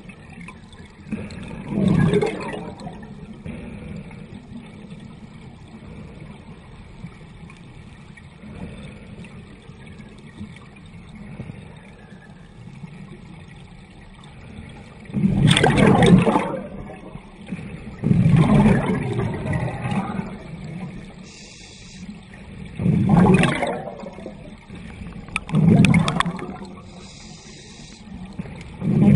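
A scuba diver's exhaled bubbles rushing out of the regulator, heard underwater: about five loud bursts, each about a second long, at irregular gaps, the first about two seconds in and the rest after halfway. A steady low underwater rushing hiss runs between them.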